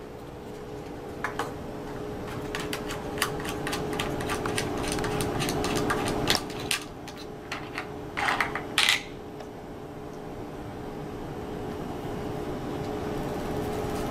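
Clicks and rattles of a clear plastic probe case being opened and handled as a probe is taken out of it, busiest in the middle and loudest at about eight to nine seconds. Under it runs a steady low hum.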